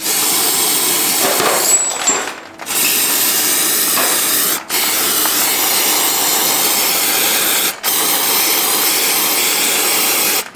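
Aerosol can of brake cleaner spraying in long hissing bursts, with short breaks about two, four and a half and eight seconds in.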